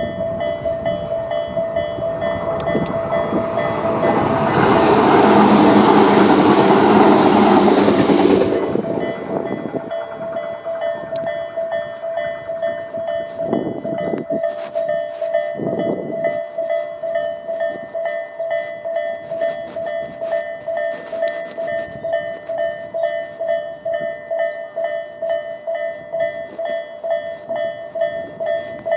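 Japanese level-crossing warning bells, the Tobu 'A' electronic bell tone on both sides, ringing in a steady repeating rhythm. An electric train passes over the crossing, loudest from about four to eight seconds in, then the bells carry on alone.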